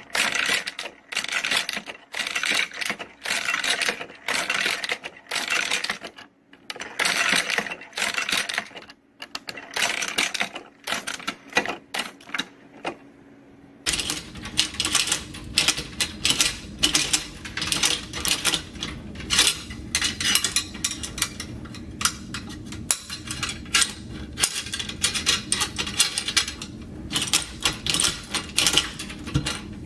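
Hand-operated machine-gun ammunition belt loader working: repeated metallic clacks as cartridges are pushed from the tray into the belt, in clusters about once a second. About halfway through, a steady low hum joins and the clacking comes thicker and faster.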